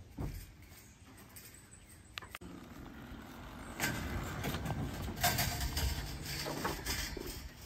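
Dirt bikes being handled onto a pickup bed by hand, with a bike rolled up a metal loading ramp: knocks, clunks and rattles of wheels and frames on the ramp and truck bed. Quieter for the first couple of seconds, then busier and louder.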